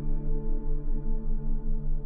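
Ambient meditation music: held tones over a low drone that throbs about five times a second, with a singing-bowl-like ring.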